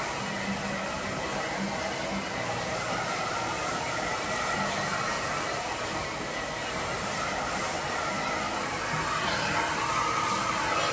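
Steady rush of air from an electric blower in the barbershop, with a faint motor whine, growing a little louder near the end.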